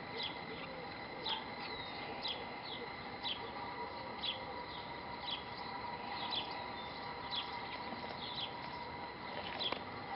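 A small bird chirping over and over, short falling chirps about once a second, over a steady faint high whine.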